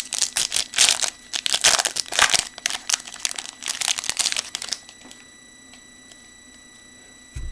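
A trading-card pack wrapper being torn open and crinkled by hand in rapid bursts for about five seconds, then quiet, with a soft low bump near the end.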